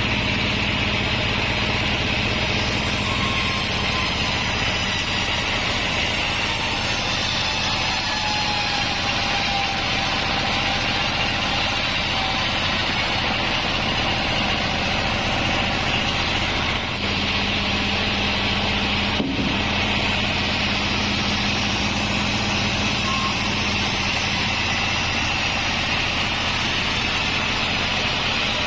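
Band sawmill machine running steadily, with a constant low hum under a high, even whine.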